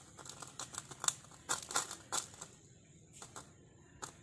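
Irregular light clicks and crackles from a tiny steel bowl and clay pot being handled as oil is brought to the pot, thickest in the first two seconds and sparser later, over a faint steady high-pitched whine.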